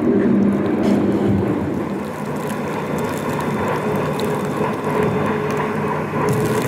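Westbound double-stack freight train passing: the diesel locomotives' engines droning steadily over the rumble of steel wheels on rail, with a few clicks near the end.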